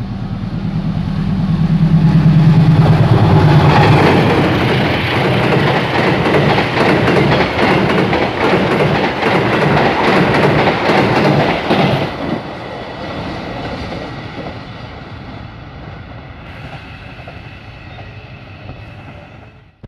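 Locomotive-hauled passenger train passing close by. A low, steady engine drone builds over the first few seconds, then the coaches' wheels clatter rapidly over the rail joints until about twelve seconds in, and the sound fades as the train moves away.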